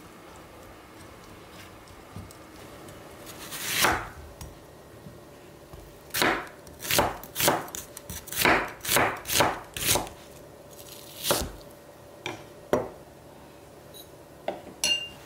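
Chef's knife slicing through an onion onto a wooden cutting board: a quick run of about eight crisp cuts, then a few more spaced cuts. Near the end, a couple of light knocks from a wooden spoon in a glass bowl.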